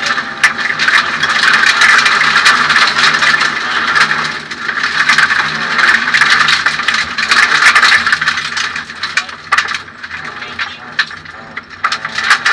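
In-cabin noise of a Suzuki Swift 1600 N2 rally car at speed: its 1.6-litre four-cylinder engine working hard, with cockpit rattles and knocks. From about nine seconds in the noise eases off, and sharp knocks stand out.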